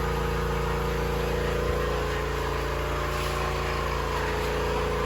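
Steady mechanical running hum with a constant hiss, unchanging in level.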